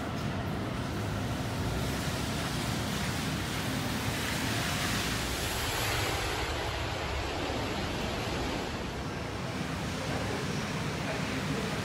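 Steady city street ambience: an even, rushing hiss with no distinct events.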